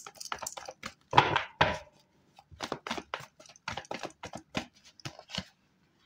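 Tarot cards being shuffled and handled: a quick run of sharp papery snaps and clicks, loudest about a second in.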